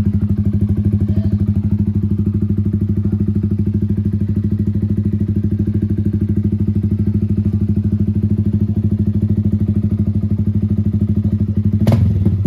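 Yamaha Sniper 155's single-cylinder four-stroke engine idling steadily through an Akrapovic full-system exhaust on a stock ECU, with no exhaust leak. A couple of sharp knocks come near the end.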